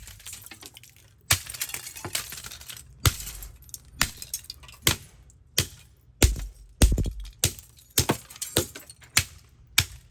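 Repeated hard blows smashing a Canon Panorama Capture Z115 35mm film camera, with cracking casing and broken pieces clinking. There are about a dozen irregular impacts, beginning about a second in.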